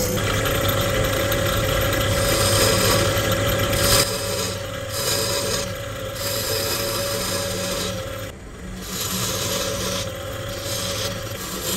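Wood lathe running, with a turning tool cutting the spinning wood: a steady motor hum under a rough, rasping scrape. The cutting lets up briefly about eight seconds in.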